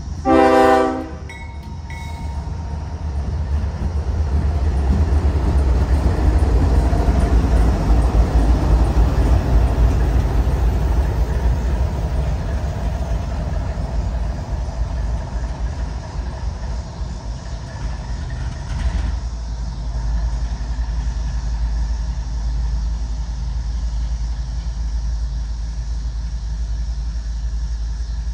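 A diesel freight locomotive's horn sounds one short, loud chord-like blast. Then the train's GE diesel locomotives rumble past close by, swelling over several seconds and settling into a steady low rumble that changes abruptly about two-thirds of the way through.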